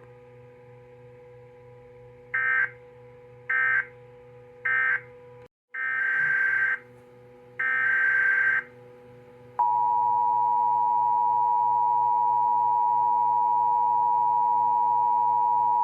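Emergency Alert System signalling: three short bursts of buzzy SAME data tones (the end-of-message code), then two longer data bursts that open the next alert. About two-thirds of the way in, the steady two-tone EAS attention signal starts and holds loud to the end, over a faint steady hum.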